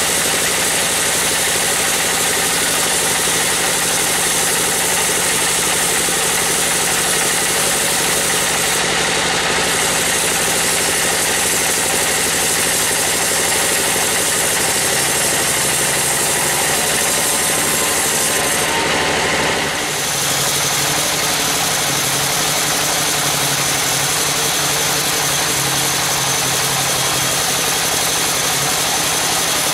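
Band sawmill running, its blade cutting lengthwise through a teak log with a steady mechanical drone. The deep low rumble drops away about twenty seconds in while the machine keeps running.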